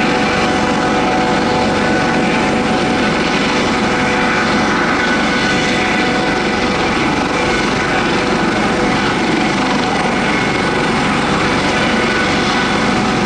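Light propeller aircraft engine, a steady drone holding one pitch throughout.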